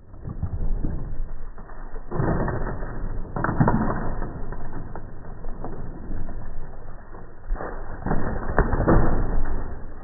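Deep, drawn-out rumbling and clattering as a portable basketball hoop tips over with a person hanging from its rim and crashes onto a concrete driveway, with heavy thuds about two seconds in, around three and a half seconds, and the loudest near the end.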